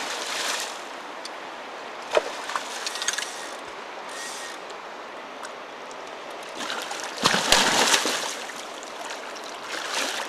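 Hooked Atlantic salmon thrashing and splashing at the surface of fast, shallow river water, over the steady rush of the current. There are several bursts of splashing, the loudest about seven and a half seconds in.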